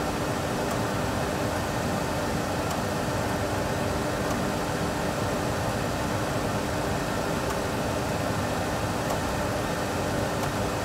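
Steady cockpit background noise of a Boeing 737 Classic full flight simulator during the climb after takeoff: an even rush with a faint steady hum.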